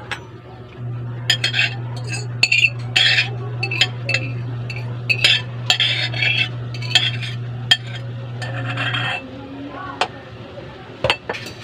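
A metal spoon scraping and clinking against a bowl in quick irregular strokes as food is scraped out of it into a wok, over a steady low hum that stops about nine seconds in. A few sharp clicks follow near the end.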